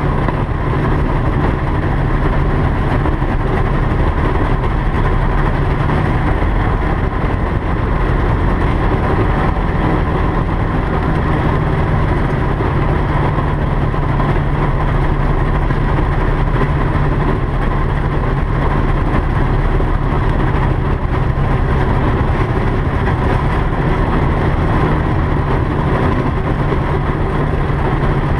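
Single-engine light airplane's engine and propeller running steadily while the plane taxis along the runway, heard from inside the cockpit.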